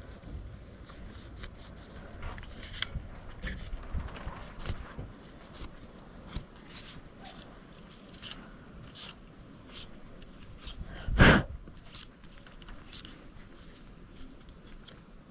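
Handling sounds of cleaning a pistol's parts by hand: cloth rubbing and many small clicks and taps of the metal parts. About eleven seconds in comes one much louder short knock.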